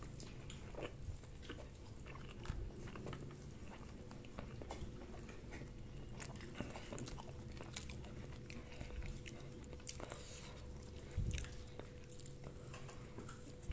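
People chewing and biting food at close range, with many small clicks and taps, and one dull knock a few seconds before the end.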